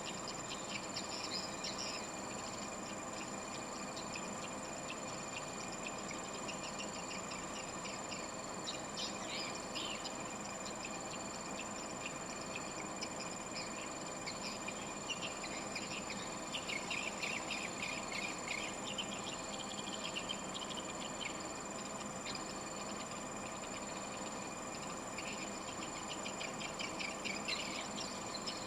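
Edible-nest swiftlet calls: clusters of rapid, high, clicky twittering that come and go over a steady background of high, constant tones.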